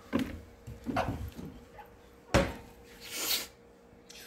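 Kitchen cupboard being rummaged through: a few knocks and bumps of the cabinet and items inside, the loudest a sharp clack a little over two seconds in, then a brief rustle of a plastic package.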